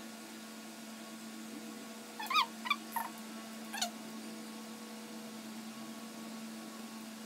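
Toy poodle whimpering: four short, high-pitched whines in quick succession about two to four seconds in, over a steady low hum.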